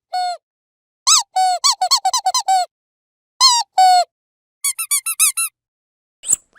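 Dog squeaky toy being squeezed in quick runs of squeaks, each squeak bending up and down in pitch, with short silent gaps between the runs. A faster, higher-pitched run comes about five seconds in.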